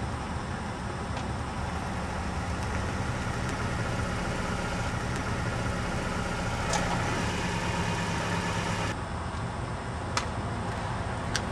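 Car engine running as the car approaches, growing louder until about two-thirds of the way in, when the sound cuts off abruptly; two sharp clicks follow near the end.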